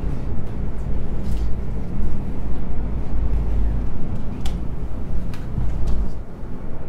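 SkyView gondola running on its track, heard from inside the glass cabin: a steady low rumble and hum, with a few light clicks about four to six seconds in. The rumble eases near the end.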